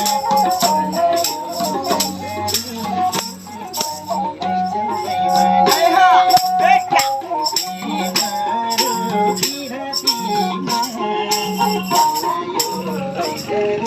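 Nepali folk music: a sarangi melody and singing over a steady madal drum beat, with a shaken jingling rattle marking the rhythm throughout.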